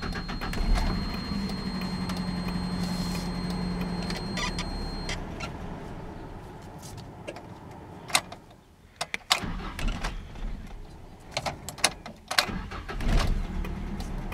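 Mazda B2600 pickup's four-cylinder engine being cranked and started, catching near the end and settling into a fast idle of about 1,000 rpm.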